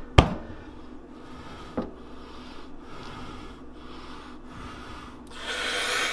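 Two sharp knocks on a kitchen countertop about a second and a half apart, the first the louder, then a rubbing, scraping noise that swells near the end.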